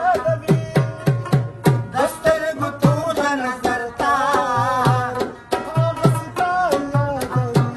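Pashto folk song: a male voice singing a wavering, ornamented melody over a tabla played in a steady rhythm, its bass drum giving low notes that slide down in pitch, with a plucked rabab.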